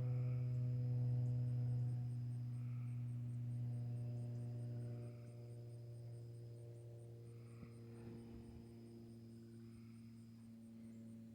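A steady low electrical hum with overtones, which drops in level about five seconds in, with a faint high-pitched ticking about four times a second behind it.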